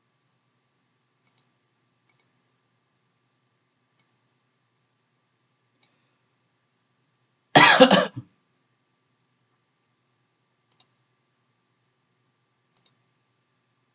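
Computer mouse clicking faintly, several times as quick double clicks. About halfway through, a single loud cough.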